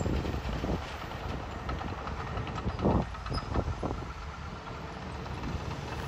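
Komatsu bulldozer running, its diesel engine rumbling steadily under scattered clanks from its steel tracks, with one louder clank about three seconds in.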